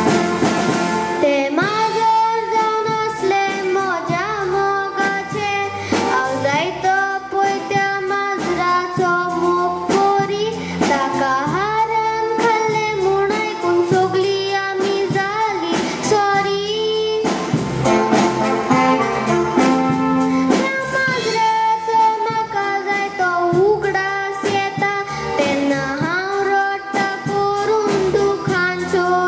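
A young girl sings a Konkani song into a microphone over instrumental accompaniment, her voice carrying a continuous melody throughout.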